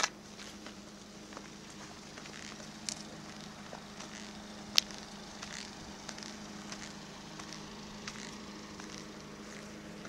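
Camcorder handling noise: scattered sharp clicks and light rustling as the camera is panned, the sharpest click about five seconds in, over a faint steady low hum.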